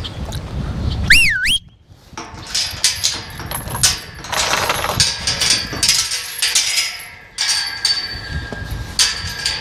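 A person's sharp whistle, sliding up, down and up again, about a second in, calling horses in from pasture. It is followed by several seconds of rattling and clanking, with thin squeaks, as a steel tube farm gate is unlatched and swung open.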